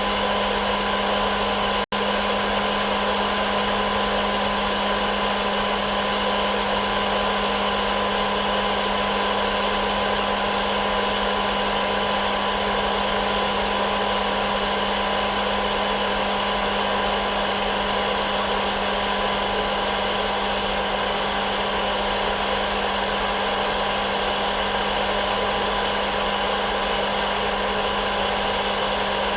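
Hair dryer running steadily as white noise: an even blowing hiss with a steady motor hum. It cuts out for an instant about two seconds in.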